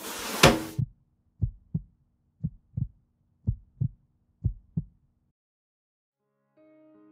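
Heartbeat sound effect: four slow double thumps about a second apart over a faint low hum, stopping after about five seconds. It opens with a short loud noisy burst, and soft keyboard music begins near the end.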